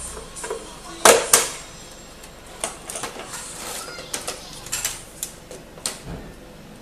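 Plastic housing of an HP F2410 all-in-one printer being pried apart and lifted by hand. There are two loud, sharp snaps about a second in, then a run of lighter plastic clicks and knocks as the scanner unit comes free.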